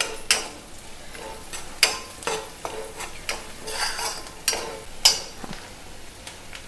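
Steel spoon stirring and scraping onions, green chillies and spices frying in oil in an aluminium pan, with a soft sizzle underneath. The spoon scrapes or clinks against the pan about once a second.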